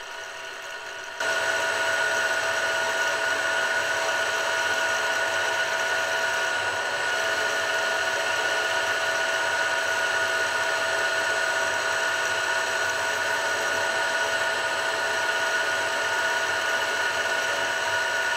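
Milling machine's cutter taking a surface cut across a cast aluminium block: a steady high whine over a rough cutting noise. About a second in, it steps up abruptly to a louder, even level.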